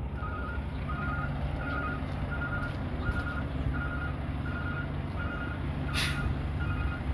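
Truck's reversing alarm beeping at an even pace, about one and a half beeps a second, over the low running of a truck engine. A short sharp hiss comes about six seconds in.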